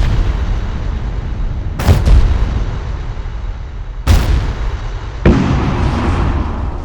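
Explosion sound effects: a run of big booms, each a sudden blast followed by a long rumbling tail. New blasts hit about two, four and five seconds in, over the rumble of one that went off just before.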